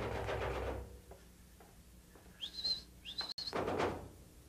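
Two short high whistles about a second apart, near the end, each sliding up quickly and then held for a moment. Faint fading background music at the start.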